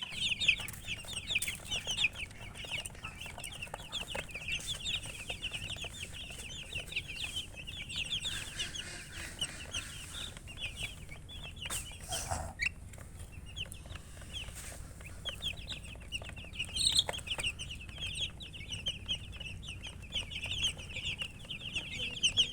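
A brood of baby chicks peeping continuously, many short high cheeps overlapping.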